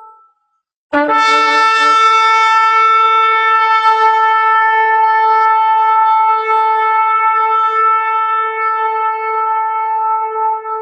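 Shofar blast: a long, steady, held horn note. The tail of an earlier blast at the same pitch ends right at the start, and after a brief silence a new blast begins sharply about a second in and is held on.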